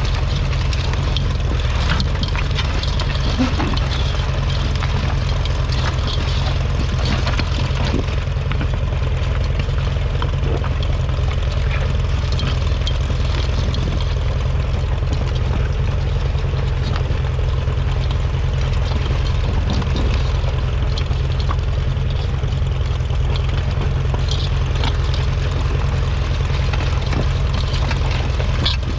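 1953 Ferguson TED20 tractor's 2.1-litre four-cylinder petrol/TVO engine running steadily.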